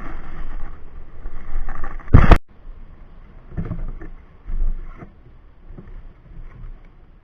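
Rustling handling noise, then one loud knock about two seconds in, after which only scattered soft knocks remain.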